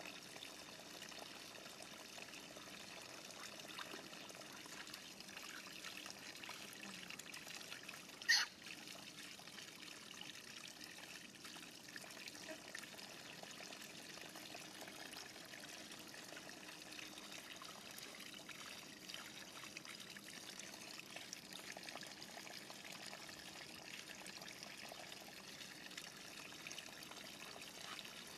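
Water trickling from a hose into a metal basin and spilling over its rim, a faint steady running sound. One brief sharp high sound stands out about eight seconds in.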